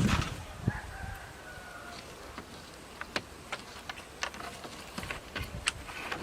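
A rooster crowing once, one drawn-out call about a second in, with scattered light knocks and clicks around it.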